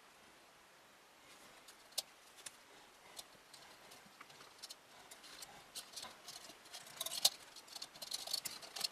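Scattered small clicks and taps of computer parts being handled and fitted by hand, getting busier in the second half.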